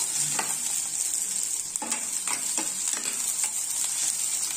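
Sliced onions and green chillies sizzling in hot oil in a non-stick kadai with a steady hiss, stirred with a metal spatula that scrapes and knocks against the pan several times.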